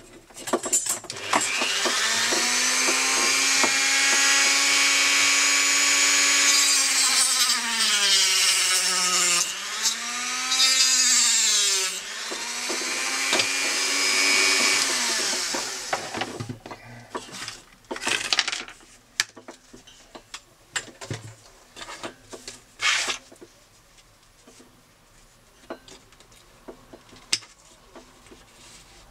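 Handheld rotary tool with a thin cut-off disc running with a high whine and a hiss of cutting. Its pitch sags twice, around the middle, as the disc bears on a metal spring strip, then recovers, and the tool winds down about 16 seconds in. Light clicks and taps of small parts being handled follow.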